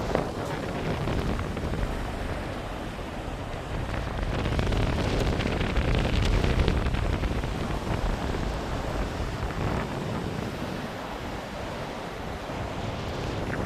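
Ocean surf washing onto a beach, with wind rumbling on the microphone. The wash swells loudest a few seconds in and then eases off.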